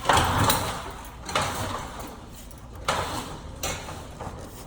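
Heavy red electrical conductor being pushed down into place, its insulation scraping and rubbing in three strokes.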